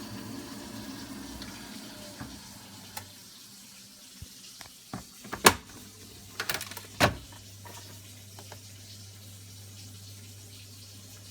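Water rushing through boiler pipework, stopping about two seconds in. A few sharp knocks and clicks follow, the loudest near the middle, and then a low steady hum sets in.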